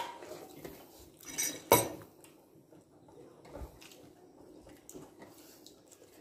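Metal spoon clinking against a plate at a meal: a few sharp clinks in the first two seconds, the loudest about two seconds in, then only faint scattered clicks of dishes being handled.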